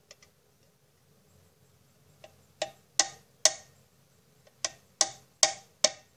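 Hammer striking a nail against a metal can to punch a hole through it. Seven sharp taps, about two a second, in two runs beginning about two and a half seconds in, each with a short ring.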